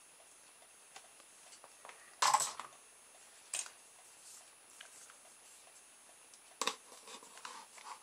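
Handling noise: a hard plastic toy boat and tools being picked up, turned and set down, giving a few short knocks and rustles, the loudest about two seconds in, with quieter ones near three and a half and six and a half seconds.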